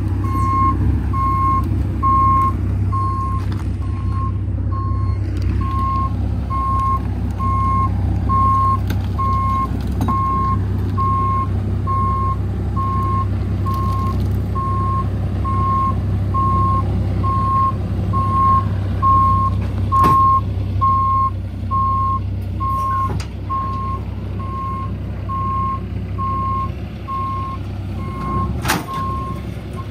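Heavy truck's reversing alarm beeping in a steady, evenly spaced series over the low rumble of its diesel engine. The beeping stops near the end, and a few sharp clicks or knocks come in the second half.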